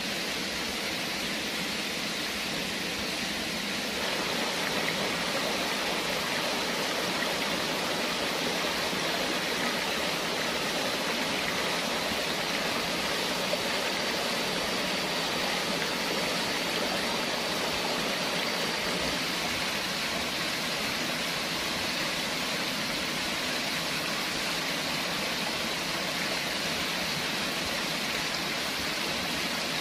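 A forest stream running over rocks, a steady rush of water that gets a little louder about four seconds in.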